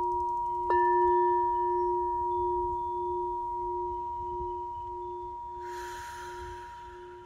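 Frosted crystal singing bowl struck once with a mallet about a second in, ringing with a low steady hum and clear higher tones that slowly fade. A short hiss comes near the end.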